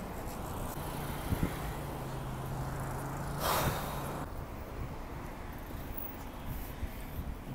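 Wind rushing over the phone's microphone, with a short puff of breath blown out about three and a half seconds in. A low steady hum sits underneath from about one to four seconds in, dropping in pitch partway.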